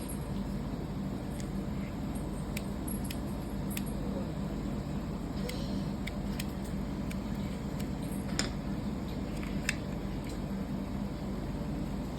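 Scattered light clicks and taps of small parts being handled as a lint remover is taken apart, over a steady low hum.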